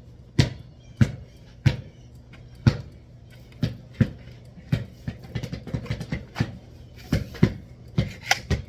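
Sharp knocks and clacks of hammock stand parts being handled and fitted together. There are about ten loud strikes at uneven intervals, with a quicker patter of lighter clicks in the middle, over a low steady hum.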